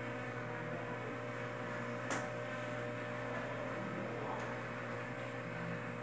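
Loren Sid Tufão wall fan running steadily: a motor hum over the rush of air from its blades, with a brief click about two seconds in.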